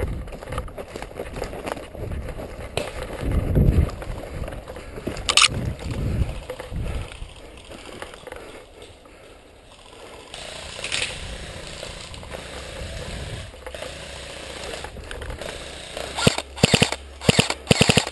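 Rustling and handling noise from a player on the move. Near the end comes an airsoft gun firing several short bursts of rapid shots.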